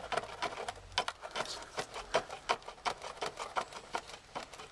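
Rapid back-and-forth sawing strokes, about four or five a second, as a blade cuts through a Land Rover Discovery 3 air-suspension air line near the compressor's brass fitting. The line is being cut with the system still undrained.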